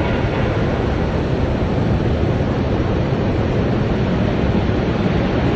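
Loud, steady industrial roar in a steelworks furnace bay during scrap charging, heavy in the low end, with no distinct clanks standing out.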